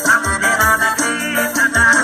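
Music with a sung melody and a steady deep bass beat, played loud through a Fiat's aftermarket car sound system.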